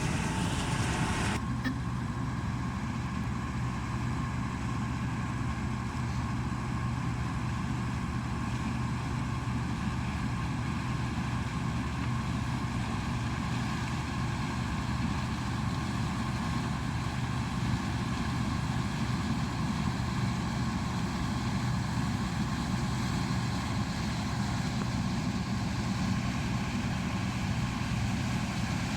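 Combine harvester's diesel engine and threshing machinery running steadily at a constant pitch, a continuous low hum with no change in speed.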